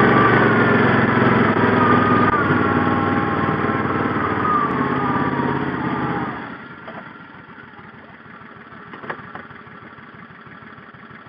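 Small vehicle engine running with its pitch sagging slightly, then shut off about six seconds in, leaving only a faint hiss.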